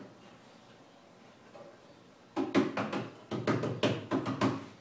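A quick, uneven run of about a dozen knocks and clunks of wood being handled, starting about halfway in and lasting a couple of seconds.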